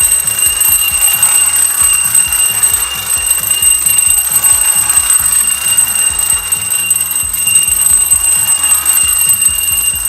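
Bell of a vintage Japanese tin wind-up bicycle toy ringing rapidly and loudly as the clockwork spring runs, a continuous metallic ringing that falls off near the end.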